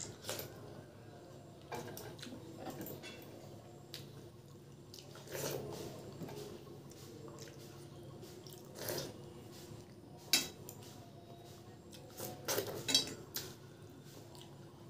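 Eating rice and curry by hand from a stainless steel plate: fingers squishing and mixing the wet rice and scraping on the metal, with chewing and wet mouth sounds. A few sharp clicks stand out in the second half.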